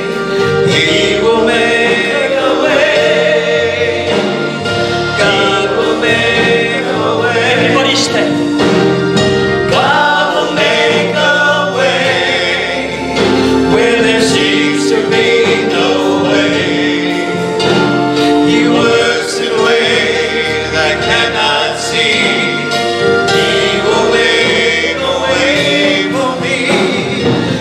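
Gospel music: a choir singing over a full instrumental accompaniment.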